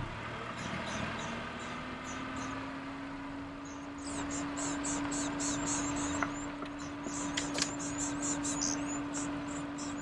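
Vehicle engine running with a steady hum that rises in pitch just after a knock at the start, then holds level. Rapid high-pitched chirping comes in from about four seconds in.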